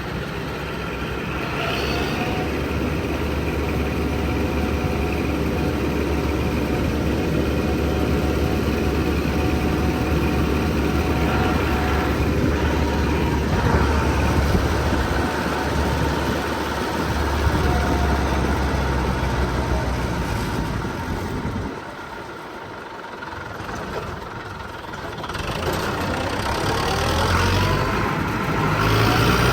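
Massey Ferguson 5900 tractor engine running steadily while the tractor drives along the road, with a low, constant drone. It turns quieter for a few seconds about three quarters of the way through, then picks up again.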